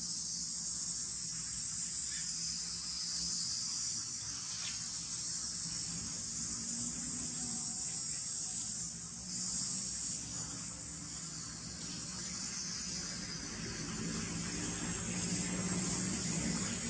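Steady, high-pitched drone of a forest insect chorus, unbroken throughout.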